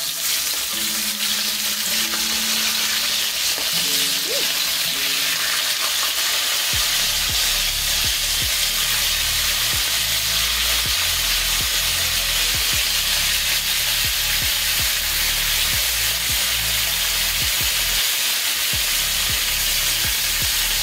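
Raw marinated chicken pieces, thighs and drumsticks, laid one by one into hot oil in a cast iron skillet and frying with a steady sizzle that thickens about six seconds in; this is the browning stage of brown stew chicken.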